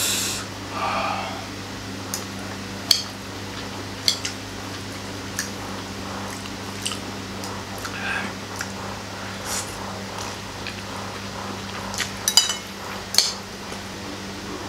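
Fork and spoon clinking and scraping against a plate while eating noodles: a dozen or so scattered light clinks, a few in quick succession near the end. A low steady hum sits underneath.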